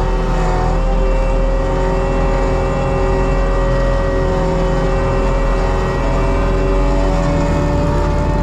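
ASV RT120 tracked loader running a Fecon forestry mulcher head, grinding brush and leaf litter along the ground: a loud, steady engine drone with a whine from the spinning mulcher drum that creeps slightly up in pitch.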